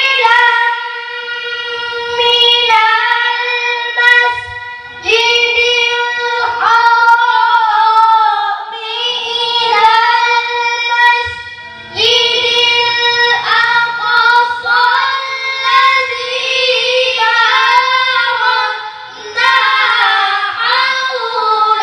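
A boy reciting the Qur'an in the melodic tilawah style. His high voice holds long, ornamented phrases, with short breaks for breath about five, twelve and nineteen seconds in.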